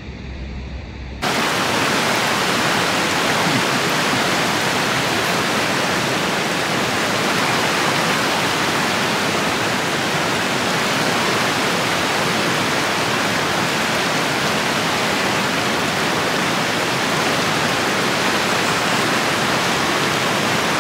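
Steady rush of falling water, an even hiss with no breaks, starting abruptly about a second in.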